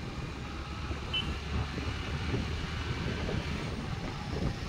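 Scooter running at riding speed in traffic: a steady engine and road rumble, with wind on the microphone.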